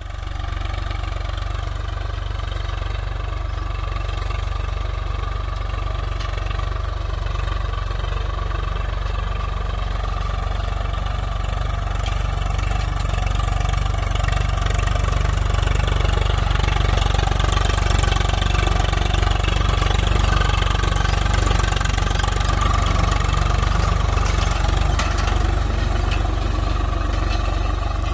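Swaraj 744 FE tractor's three-cylinder diesel engine running steadily under load as it pulls a nine-tine cultivator through the soil. It grows a little louder in the middle stretch.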